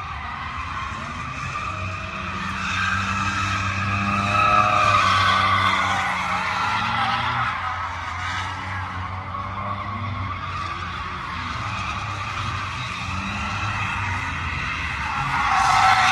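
Cars spinning donuts on asphalt: a continuous tyre screech over engines revving up and down. It swells around four to six seconds in and again near the end as a sliding car comes close.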